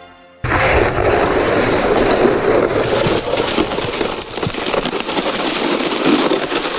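Snowboard sliding and scraping over hard, crusty snow, with wind noise on the chest-mounted action camera's microphone. It starts abruptly about half a second in, as a dense hiss full of small clicks and scrapes.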